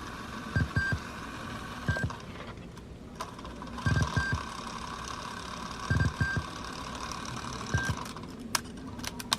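Steady tape hiss from a Sony WM-EX1 Walkman cassette player heard through a portable speaker, with soft low thumps and short beeps about every two seconds, then a few sharp clicks near the end.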